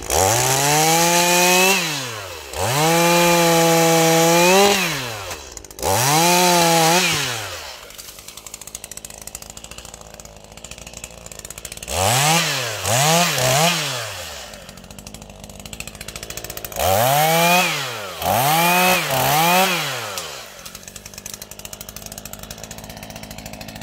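Stihl MS 212 two-stroke chainsaw revved repeatedly at full throttle and dropping back to a low idle in between. Three longer bursts come first, then after a pause at idle two clusters of three quick throttle blips.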